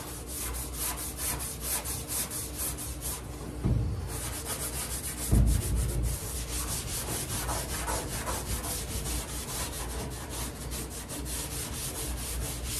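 Red Scotch-Brite abrasive pad scuffed by hand in quick back-and-forth strokes over epoxy primer on a car's door and quarter-panel edge, keying the surface so body filler will stick. Two dull thumps come a little under four and about five and a half seconds in.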